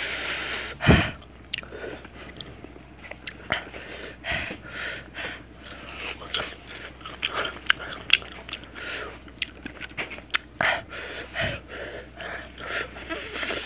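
A person eating ginger slices dressed in chili salt: wet chewing and lip smacks, with repeated hissing breaths drawn in and out through the mouth against the chili's heat.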